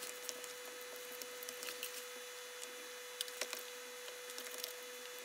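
Faint, scattered light clicks and taps of a metal fork and fingers laying pieces of cured salmon onto cream-cheese-spread bagel halves, over a faint steady hum.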